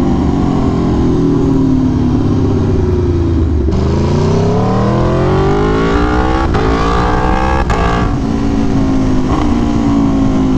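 Aprilia Tuono V4 1100's V4 engine with an SC Project CR-T exhaust, heard from the rider's helmet over wind rush: it winds down off the throttle for a few seconds, then the throttle opens and it revs up hard, with two upshifts about a second apart before it settles into a steady cruise.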